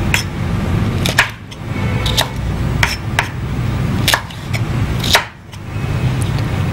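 Knife chopping green chillies on a wooden cutting board: sharp knocks of the blade hitting the wood, about one a second at an uneven pace.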